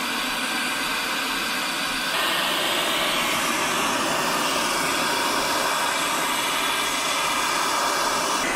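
Brazing torch flame hissing steadily while heating a copper refrigerant line joint on a new evaporator coil, a little louder after about two seconds.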